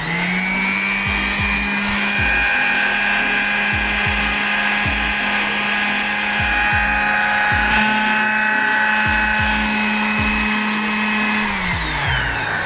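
Dongcheng DSB100 mini orbital sander switched on, quickly spinning up to a steady motor whine and running evenly with no extra noise. It is switched off about a second before the end and winds down.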